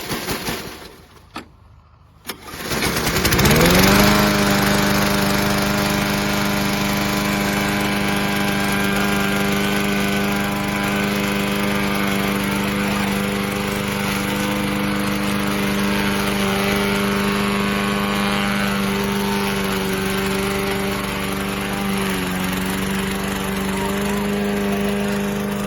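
New 144cc single-cylinder four-stroke engine of a PowerSmart 21-inch push lawn mower being pull-started for its first run, catching on the first try. It speeds up over a second or so after catching, then runs steadily, with a brief dip in speed about 22 seconds in.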